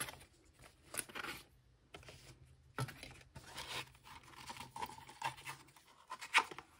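Cardboard and card being handled: the lid of a round cake-shaped cardboard album box lifted and circular photo cards slid out of it, giving scattered scrapes, rustles and light taps.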